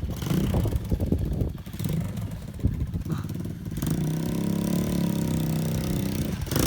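Small moped scooter engine running, uneven and choppy at first, then settling into a steady engine note from about four seconds in.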